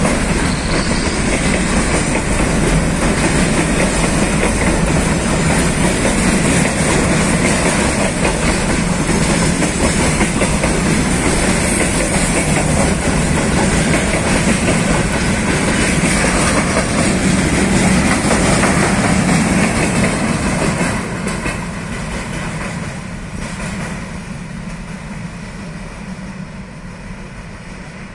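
Container freight train rolling past close by, its wagons' steel wheels clattering on the rails. About twenty seconds in the last wagon goes by and the sound fades steadily as the train moves away.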